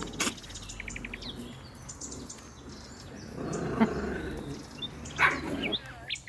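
Small dogs giving two short barks, a couple of seconds apart, with songbirds chirping.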